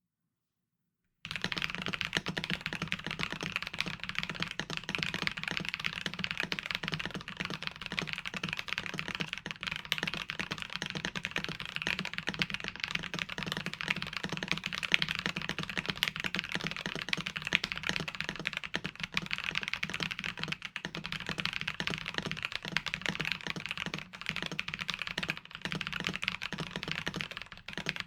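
Continuous fast typing on an FL MK870 mechanical keyboard with Penguin tactile switches, the keystrokes running together into a dense patter of clacks. It starts about a second in.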